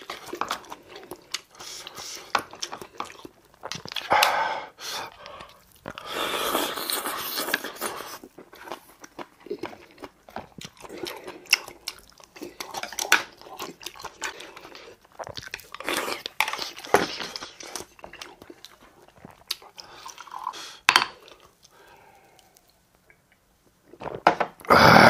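Close-up eating sounds: chewing and crunching of kimchi and seasoned lettuce, with sharp clicks of chopsticks and spoon against the bowls, and a louder burst of noise near the end.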